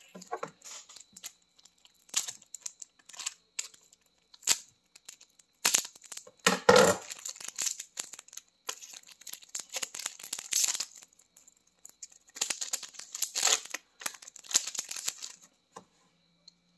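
A hockey card pack's wrapper being torn and crinkled open by hand, in short bursts of ripping and rustling with pauses between, the loudest about seven seconds in.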